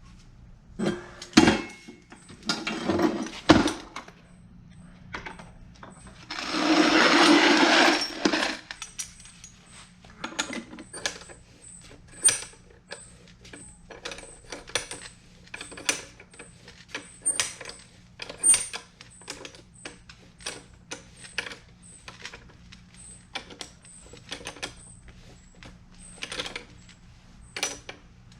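Metal tools and parts being handled: many sharp, ringing clinks and knocks at irregular intervals, with a steady rushing noise of about two seconds around seven seconds in.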